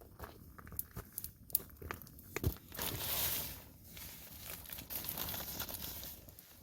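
Campfire being drowned out: the wet embers crackle and snap, with a hiss that swells up about three seconds in and again in the second half.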